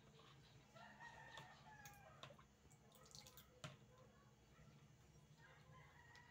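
A rooster crowing faintly twice, about a second in and again near the end, over near silence. A couple of light clicks, like a spoon against a bowl, fall between the two crows.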